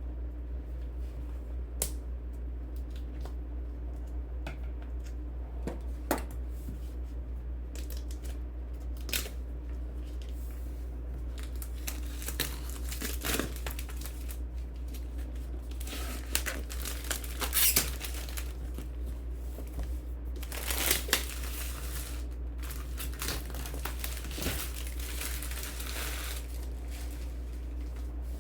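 Keyboard packaging being unwrapped by hand: scattered light clicks and taps, then bouts of crinkling and tearing wrapping through the second half. A steady low hum runs underneath.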